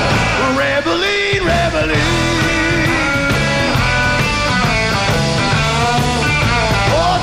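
Live rock band playing an instrumental passage: an electric guitar lead with bent notes over bass and drums.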